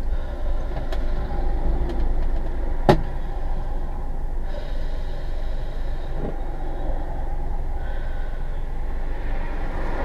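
Steady low vehicle rumble heard through a dashcam in a stopped car: an engine running with road traffic going by. A single sharp click about three seconds in.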